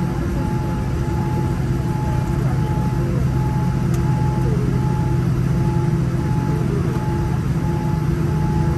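Cabin noise inside a Boeing 787-10 airliner: a steady low drone from the engines and air system, with a faint tone pulsing on and off about every half second.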